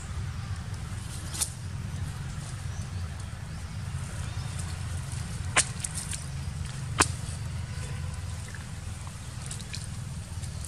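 Outdoor background noise: a steady low rumble with three sharp clicks, about a second and a half, five and a half and seven seconds in.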